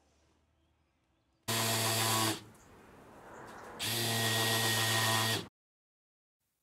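Power drill running in two bursts, the first about a second long and the second about a second and a half, with a quieter spell between, drilling a row of holes along the edge of a boat hull.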